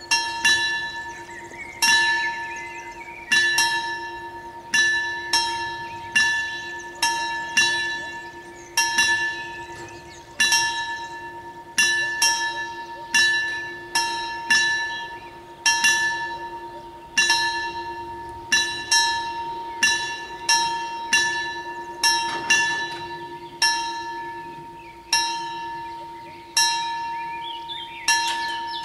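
Railway level-crossing warning bell struck over and over at an uneven pace, often two strikes close together, each stroke ringing on into the next, as it warns that a train is approaching.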